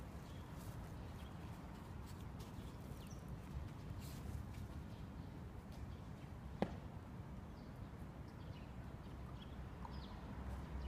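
Quiet outdoor ambience with a low steady rumble, light scratchy ticks from a Pomeranian puppy pawing at sand, and a few faint bird chirps. One sharp click stands out about two-thirds of the way through.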